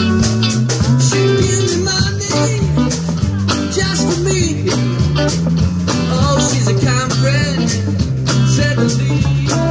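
Live blues band playing: electric guitar lead with bent notes over bass and a drum kit keeping a steady beat.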